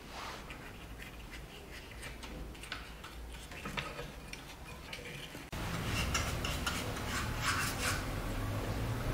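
Bristle paintbrush applying wood stain to a carved wooden toy car, a run of small clicks and scrapes as the bristles dab and stroke the wood. About halfway through the sound gets louder and a low steady hum comes in under the strokes.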